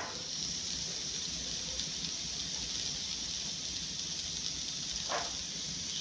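Firewood burning in an asado brasero, the iron basket where logs burn down to embers: a steady hiss, with a short falling whistle about five seconds in.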